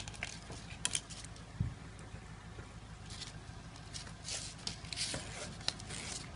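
Plastic spatula scraping and clicking against a plastic bowl as sticky homemade slime is stirred: an uneven run of short scrapes and small clicks.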